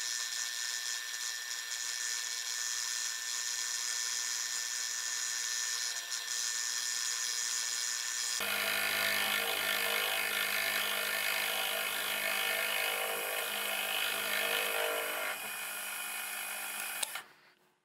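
Milling machine spindle driving a small end mill through a metal knife blank: a steady high whine with cutting noise. About halfway through the sound shifts abruptly, picking up a low hum and rougher cutting, and it cuts off just before the end.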